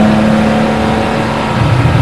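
Porsche Boxster 981 RSR's flat-six engine pulling steadily in fourth gear at about 4,200 rpm. About a second and a half in the throttle is lifted and the engine note drops to a lower, rougher sound as the car slows for a corner.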